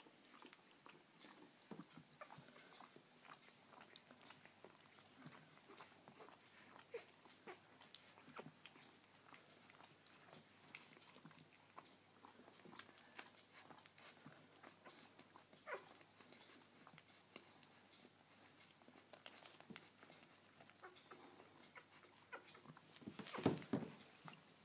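Faint, scattered wet smacking and sucking clicks of newborn labradoodle puppies nursing at their mother's teats, with a louder burst of rustling and smacking near the end.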